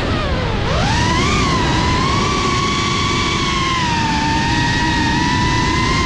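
FPV racing quadcopter's brushless motors and propellers whining in flight, the pitch dropping sharply about half a second in and rising again as the throttle comes back, then holding fairly steady with small wobbles, over a rough low rushing noise.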